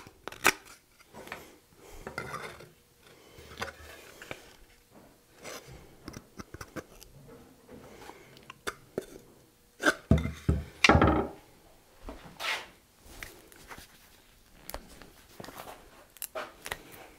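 Knife shaving a small wooden wedge and the wedge and pulaski being handled on a wooden workbench: scattered scrapes, clicks and light knocks. Two heavier knocks come about ten seconds in.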